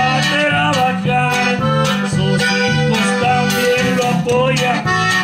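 Live norteño band playing an instrumental break of a corrido: accordion carrying the melody over guitar and drums with a steady beat.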